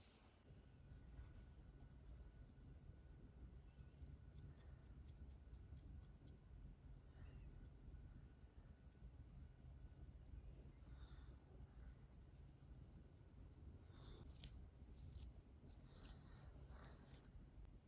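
Long artificial fingernails scratching through a scalp with dandruff in quick, repeated strokes, a soft rapid scratching with a few louder scrapes near the end, over a low steady rumble.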